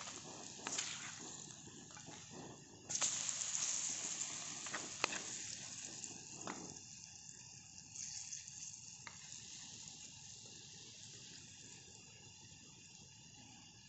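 Banana-oatmeal pancake batter sizzling in butter in a small frying pan, the sizzle jumping louder about three seconds in and slowly easing off, with a few light clicks.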